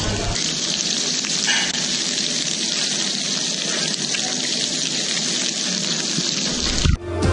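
Prawns frying in bubbling butter in a pan: a steady sizzling hiss. Music comes in near the end.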